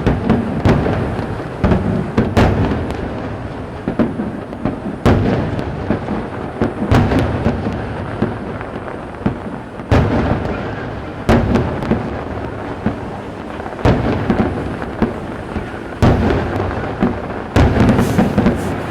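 Aerial fireworks shells bursting over a lake: a long run of sharp booms at irregular intervals, each followed by a rolling, thunder-like echo.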